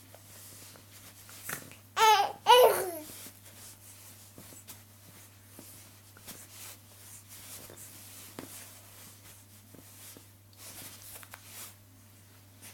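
A ten-week-old baby cooing: two short, high-pitched vocal sounds one right after the other about two seconds in, then only faint small noises.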